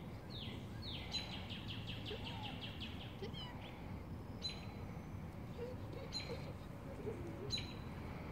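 Songbirds chirping: a quick run of repeated high chirps over about two seconds, then single sharp chirps about every second and a half, over a steady low background hum.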